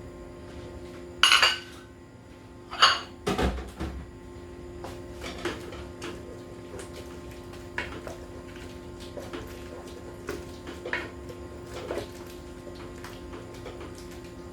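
Metal utensil clanking against a stainless steel cooking pot: three loud knocks in the first few seconds, then lighter clinks and scrapes of stirring, over a steady low hum.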